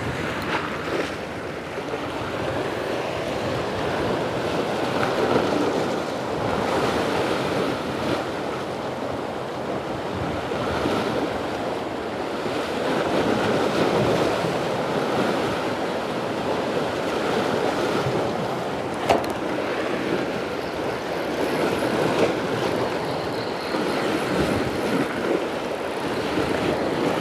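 Sea waves surging and washing over shoreline rocks, rising and falling in slow swells, with wind buffeting the microphone.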